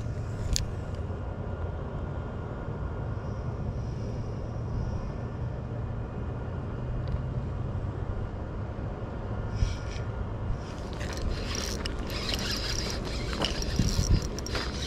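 Spinning reel being cranked to retrieve line, its gears whirring and clicking over a steady low rumble. The clicking gets busier about two-thirds of the way in.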